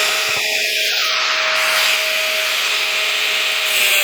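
Electric grinder cutting through a steel bolt: a steady motor whine under a harsh grinding hiss.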